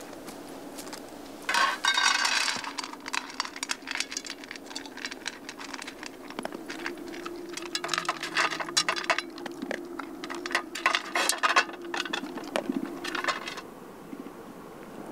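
Light metallic clinking and jangling in several bursts, loudest about two seconds in and again from about eight to twelve seconds in.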